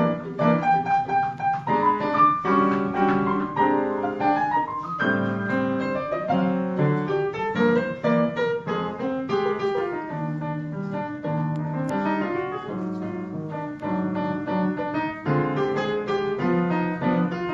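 Jazz duo of acoustic piano and violin playing live, the violin's sustained lines sliding between notes over piano chords.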